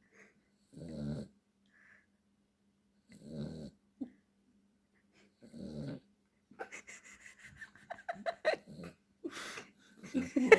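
Dachshund snoring in her sleep: slow, rough snores about one every two and a half seconds, then a quicker, busier run of short sounds in the last few seconds.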